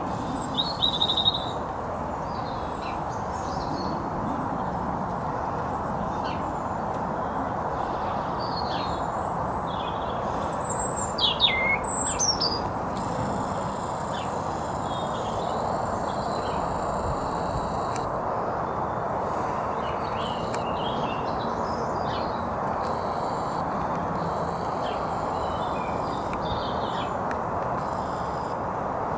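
Small garden birds chirping and calling in short, scattered phrases, loudest about a second in and again near the middle, over a steady background hiss.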